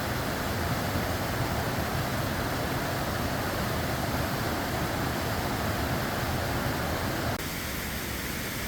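Steady rushing of a waterfall cascading down a creek, an even noise with no distinct events; it drops a little in level and body about a second before the end.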